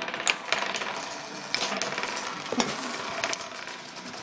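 Wooden nickels spinning and wobbling on a wooden tabletop: a continuous rattle broken by many sharp clicks as the tokens strike the table and one another.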